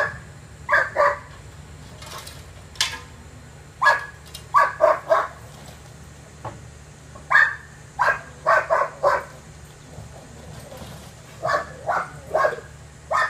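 German shepherd barking in quick bursts of two to four barks, again and again, over a steady low hum.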